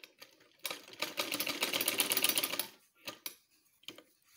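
Sewing machine running for about two seconds in a quick, even burst of stitches, sewing a seam along a shirt's collar band. A few light clicks follow.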